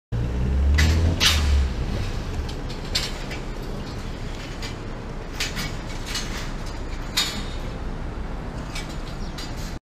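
Steady open-air noise with a dozen or so sharp clicks and knocks scattered through it, and a heavy low rumble in the first couple of seconds; the sound cuts off suddenly near the end.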